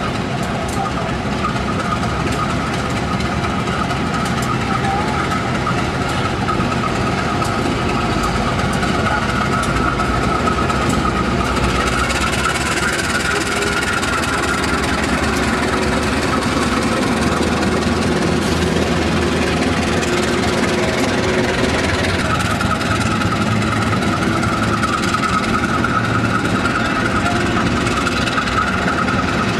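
GE CC201 diesel-electric locomotive's engine running hard as it pulls out and passes close by, followed by its passenger coaches rolling past. A steady, continuous mechanical din.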